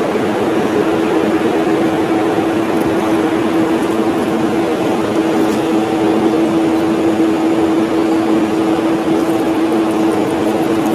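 Steady mechanical drone with a constant low hum running unchanged throughout.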